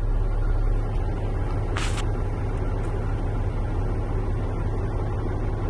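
Diesel truck engine idling with a steady low rumble, heard from inside the cab. A short hiss sounds once, about two seconds in.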